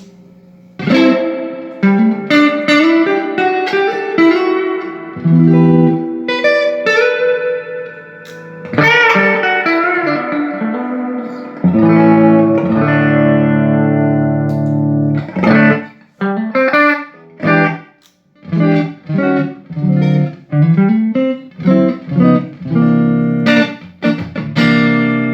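Electric guitar played through a Fender '65 Deluxe Reverb Reissue valve amp with freshly fitted power tubes and a newly set bias: picked single-note lines and runs, a held chord about halfway, then a series of short chopped chords and a final chord left ringing.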